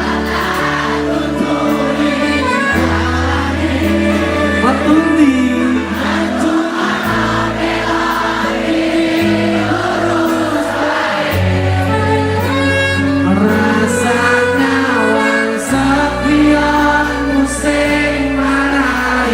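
Background music: a song with singing over sustained bass notes that change every few seconds.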